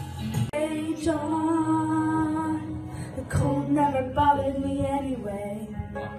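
A woman singing karaoke into a microphone over backing music, holding long notes. A different piece of music cuts off about half a second in.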